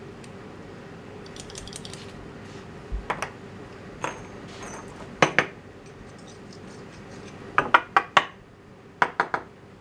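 Small metal model steam engine parts clinking and tapping against each other and the workbench as they are handled and fitted by hand: scattered sharp metallic clicks, the loudest about five seconds in, then two quick runs of three near the end. A steady hum runs underneath.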